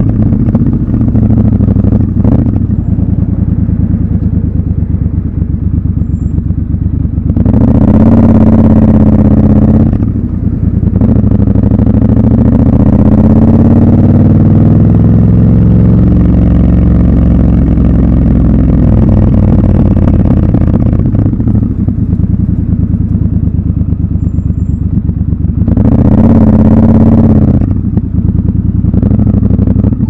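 Triumph Scrambler 1200 XC's 1200 cc parallel-twin engine running as the bike rides through traffic: two short, louder throttle openings, about eight and twenty-six seconds in, and between them a slow rise in engine pitch that eases off again.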